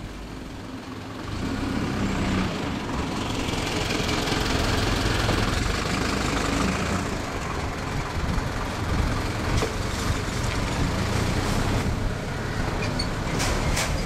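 KiHa 187 series diesel railcar's engines running as it approaches slowly, growing louder about a second and a half in. A few sharp clicks near the end.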